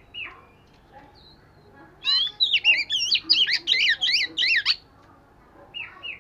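Oriental magpie-robin singing: a single short note, then about two seconds in a loud, fast run of looping whistled notes lasting nearly three seconds, then a few short falling notes near the end.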